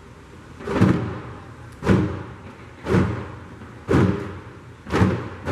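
A group of djembe hand drums struck together in even, heavy beats about once a second, each with a deep ringing tone; near the end the beats come closer together as the rhythm picks up.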